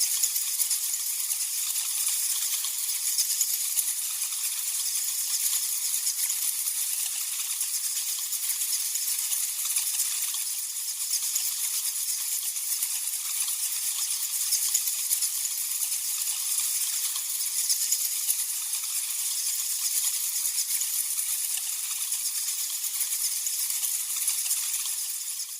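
A colony of bats chittering and squeaking together: a dense, continuous, high-pitched rattle of calls, fading out near the end.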